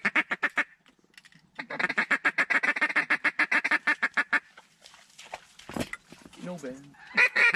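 Mallard duck call blown by a hunter in rapid runs of short quacks, about eight a second: a brief run at the start, a long run of about three seconds from around a second and a half in, and another starting near the end. A single knock around six seconds in.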